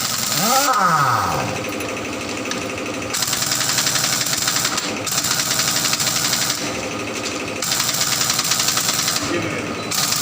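Power tool running with a fast, even rattle, its high-pitched part cutting in and out in spells of a second or two as it is worked against the rubber. Near the start an engine revs up and back down.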